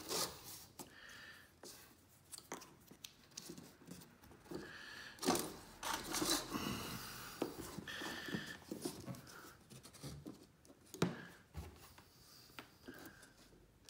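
Fiberglass screen mesh and rubber spline rustling and scraping as they are pressed by hand into an aluminum screen frame's channel, with a few sharp clicks, the loudest about five seconds in and again about eleven seconds in.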